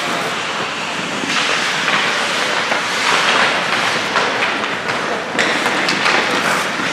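Ice hockey play: a steady hiss of skate blades on the ice, broken by sharp clacks of sticks and puck.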